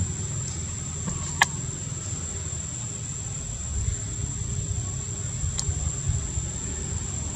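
Outdoor background: a steady low rumble with a thin, steady high-pitched whine over it. Two sharp clicks about four seconds apart.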